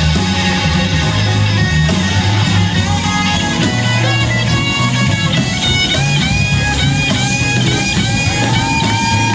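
Live band music played through a hall PA, with electric guitar over bass and drums, picked up from the audience. In the latter half a lead line bends and glides in pitch.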